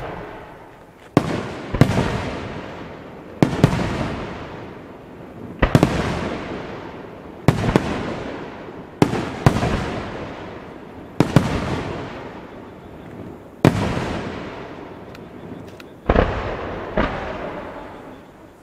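Aerial firework shells bursting: about a dozen loud booms, one every second or two and sometimes two in quick succession, each followed by a long echoing rumble that fades away.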